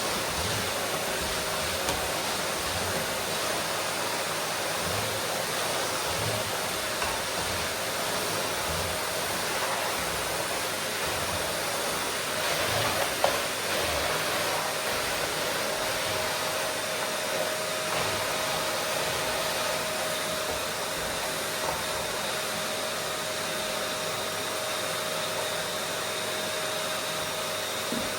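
Vacuum cleaner running steadily: a constant rush of air with a steady motor whine, and one brief knock about thirteen seconds in.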